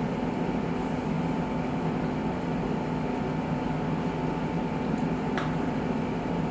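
Steady mechanical hum in a small room, with a few faint clicks, one a little after five seconds in.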